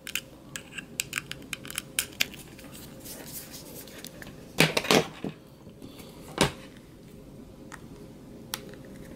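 Small clicks and knocks of a USB cable being handled on a wooden desk and its plugs pushed into a power bank and a tablet: a quick run of light clicks, a few louder knocks, and one sharp knock a little past the middle.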